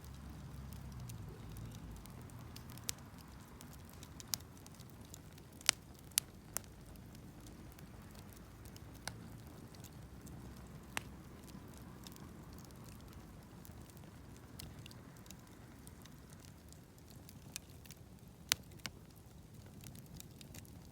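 Wood campfire burning: a steady low rush of flame with about ten sharp pops scattered irregularly through it.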